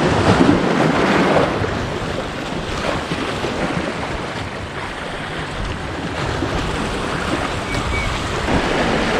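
Strong wind buffeting the microphone over the wash of waves, as a dense rushing noise that swells in a gust over the first second and a half.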